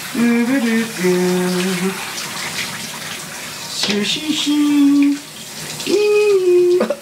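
Water spraying from a handheld shower head onto a wet dog and the bathtub floor. Over it, a voice holds four drawn-out, wordless notes of about a second each.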